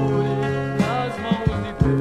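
Music from a Brazilian gospel LP track: a band plays with a steady bass line and plucked string attacks, and no words are sung.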